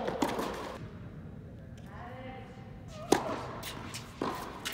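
Tennis ball being hit during a doubles rally in a large indoor tennis hall: a few sharp racket-on-ball pops, the loudest about three seconds in and another about a second later.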